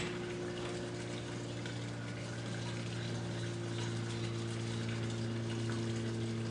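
A steady low hum over an even sizzling hiss, with no breaks: food frying in a hot cast-iron Dutch oven.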